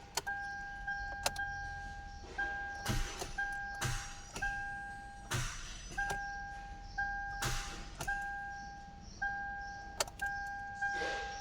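A steady electronic buzzer tone, broken roughly once a second by a sharp click, with several short hissy rushes of noise in between.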